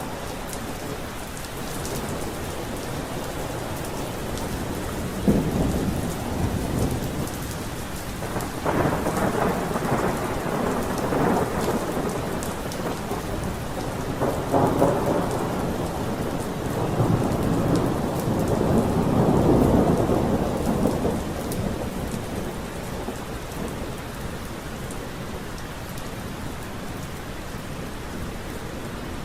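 Steady rain with rolling thunder: several low rumbles swell and fade over the rain, the longest and loudest about two-thirds of the way through.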